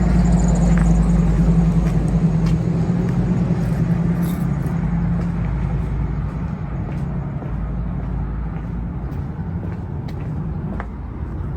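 RV engine and road rumble heard from inside the cab while driving: a steady low drone whose pitch drops slightly about halfway through.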